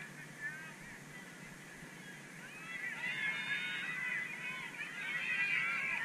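A flock of geese honking, many overlapping calls that swell and grow louder about halfway through.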